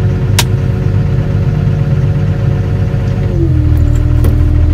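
Doosan DX140W wheeled excavator's diesel engine running steadily, heard from the operator's cab, with a sharp click shortly after the start. About three and a half seconds in, the engine note drops to a lower pitch and holds there.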